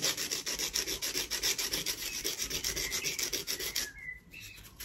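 Nail file rasped quickly back and forth across a fingernail to shape it round, an even run of gritty strokes that stops about four seconds in.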